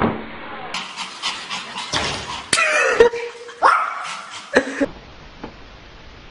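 Pomeranian puppy yapping in a string of short, high barks, some with a falling pitch. They stop near the five-second mark, leaving only a low steady hiss.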